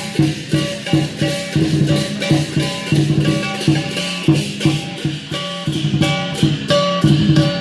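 Music with plucked string notes over a steady, regular beat.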